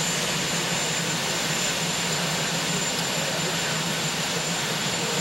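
Marine One helicopter running on the ground, its engines and turning rotor making a steady, even noise with a thin high whine.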